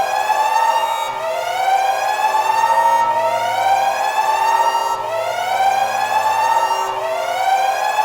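Emergency siren sounding a repeating rising wail. Each tone climbs for about two seconds, then drops back abruptly and starts climbing again, four times over.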